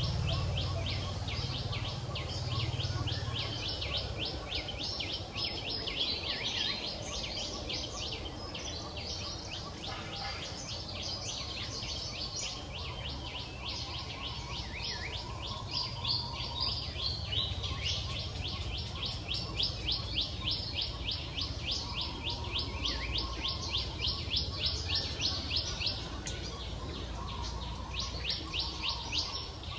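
Rapid, evenly repeated high-pitched chirping from wildlife, several chirps a second without a break, over a faint low rumble.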